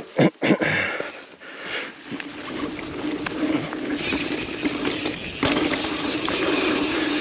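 Yeti SB150 mountain bike riding down a dirt trail: two sharp knocks right at the start, then steady rolling noise and rattle from the tyres and bike that builds as it gathers speed, stepping louder about four seconds in.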